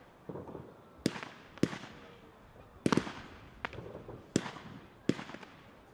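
Fireworks bursting in a string of sharp bangs at irregular intervals, with a quick run of three about three seconds in, each fading away quickly.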